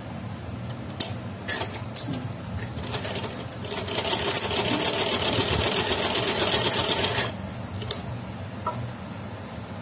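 Black domestic sewing machine stitching through cotton cloth in one fast, even run of about three and a half seconds, with a few separate clicks before and after it as the cloth is set and turned under the foot.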